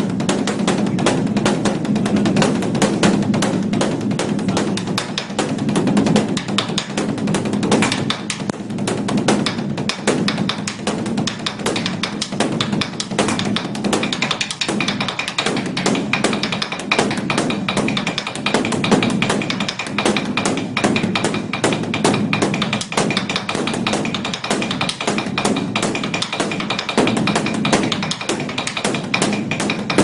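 Large Korean Buddhist dharma drum (beopgo) beaten by a monk with a wooden drumstick: a fast, unbroken run of strikes with a deep ringing hum from the drum under them.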